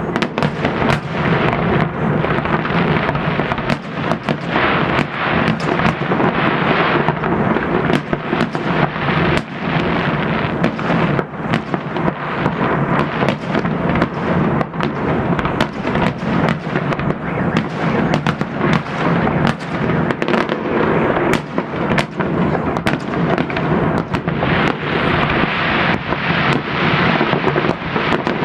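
Fireworks salute: aerial shells bursting, many sharp bangs in quick succession over a steady rumble.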